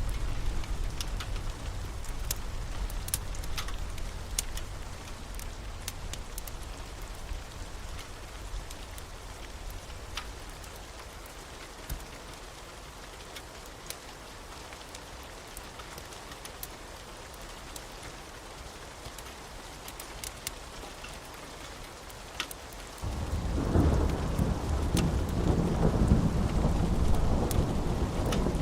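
Thunderstorm ambience: steady rain with scattered drop clicks, a low thunder rumble fading away over the first several seconds, then a loud roll of thunder breaking in suddenly near the end.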